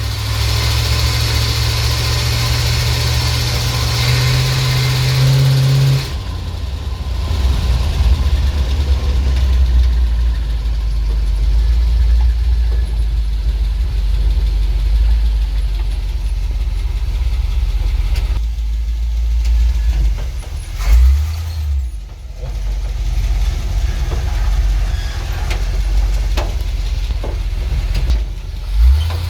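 ZIL truck's petrol engine held at raised revs, stepping up a little, then dropping to idle about six seconds in. It idles steadily, with two short throttle blips, one about two-thirds of the way through and one near the end. The engine is being tuned for carburettor and ignition because it backfires and lacks power.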